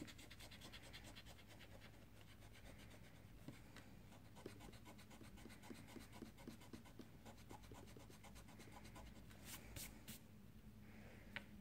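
Faint rubbing of a pencil's eraser on paper, fixing pencil lines: a run of short scrubbing strokes through the middle, with a few sharper taps near the end.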